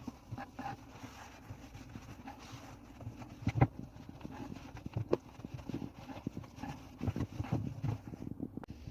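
Irregular knocks and clicks of objects being handled, the loudest about three and a half seconds in and another near five seconds.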